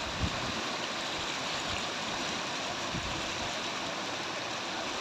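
Muddy water rushing through the openings of a concrete sluice gate, a steady splashing roar of fast-flowing water.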